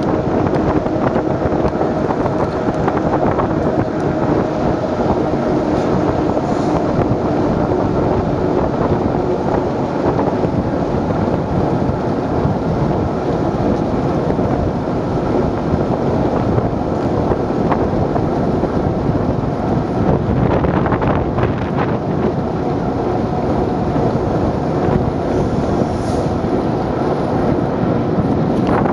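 Steady rush of wind buffeting the microphone and water washing along the hull of a moving passenger boat, with a faint hum from the boat's engine underneath.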